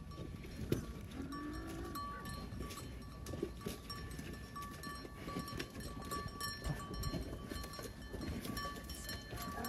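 A pair of oxen pulling a traditional plough through a flooded, muddy rice paddy. A bell on an ox's neck rings on and off throughout, over scattered soft knocks and squelches of hooves and the plough in the wet mud.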